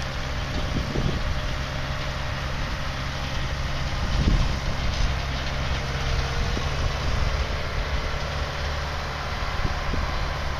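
A John Deere 6400 tractor's 4045TL four-cylinder diesel engine runs steadily as the tractor drives across a field towing a rotary mower.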